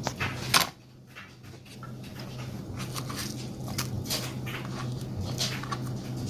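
Kitchen handling noises while rummaging for ingredients: a sharp knock about half a second in, then scattered light clicks and rustles over a steady low hum.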